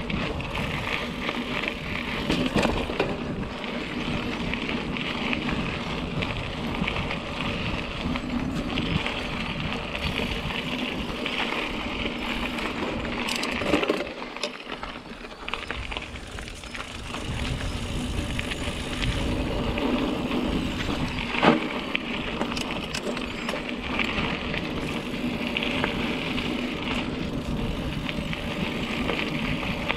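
Mountain bike being ridden on a dirt singletrack: a steady rumble of tyres on the trail with rattling knocks over bumps, and one sharper, louder knock about two-thirds of the way through.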